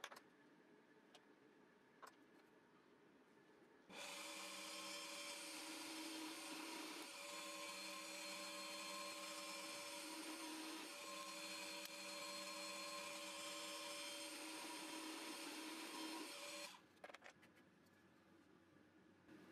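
Benchtop drill press motor starts about four seconds in and runs steadily for about thirteen seconds while a twist bit drills a hole through a small wooden piece, then stops. A few light handling clicks come before and after it.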